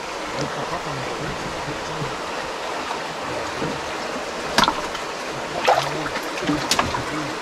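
Creek water running steadily, an even rushing sound, with three sharp knocks in the second half.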